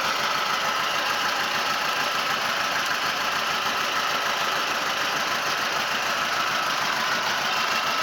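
Boat engine running steadily, a constant drone with a faint steady whine.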